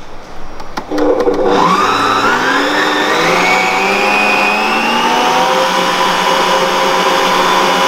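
Mito MX100 stand mixer's motor starting up after a few clicks, its whine rising in pitch over the next couple of seconds as the speed dial is turned up, then running steadily at high speed. It is whisking egg yolks and sugar to thicken them.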